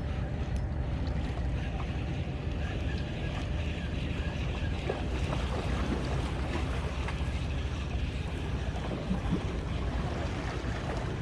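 Steady wind and water noise, with wind rumbling on the microphone.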